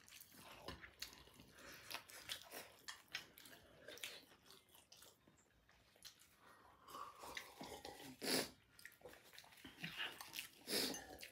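Faint chewing and wet mouth clicks of people eating biryani and yogurt with their hands, irregular small sounds with a few louder ones in the second half.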